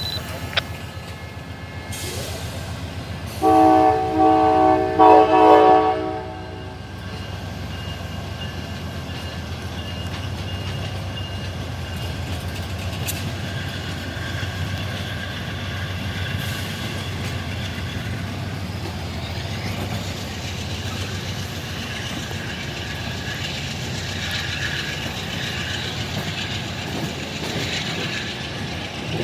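Amtrak passenger train's locomotive horn sounding a few short blasts of its multi-note chord about three seconds in, followed by the steady rumble of the train rolling in.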